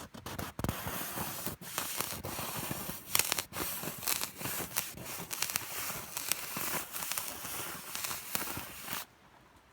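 Fire crackling and hissing, with a steady hiss and many sharp pops, cutting off suddenly about nine seconds in.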